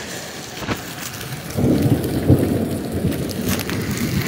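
Heavy rain pouring down on pavement, with a deeper low rumble coming in about a second and a half in and carrying on.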